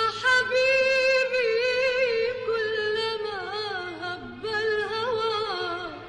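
Arabic music: a slow, ornamented melody line that wavers and slides in pitch, dipping about four seconds in, held over a steady low drone, fading near the end.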